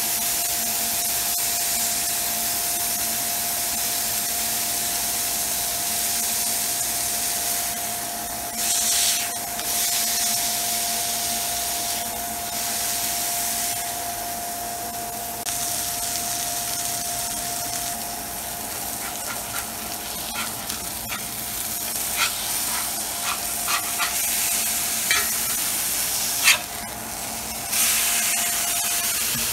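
Ground-beef smash burger patty sizzling in a smoking-hot cast iron skillet with a steady hiss, right after being pressed flat with a metal spatula. Sharp clicks and scrapes of a metal utensil on the pan come in the second half.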